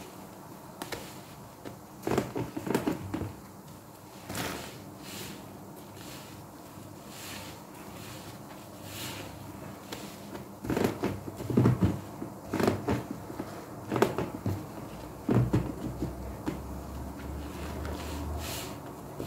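Foam sponges soaked in laundry-liquid suds squeezed and wrung by hand in a plastic basin: wet squelches and splashes in irregular clusters, busiest in the second half.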